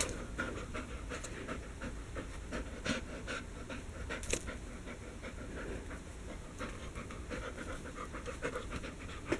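A dog panting in quick, short breaths that go on steadily.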